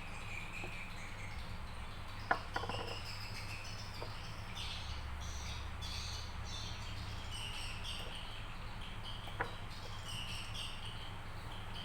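Background ambience of birds chirping over a steady low hum, with a few sharp clicks: two close together a couple of seconds in and one more near the end.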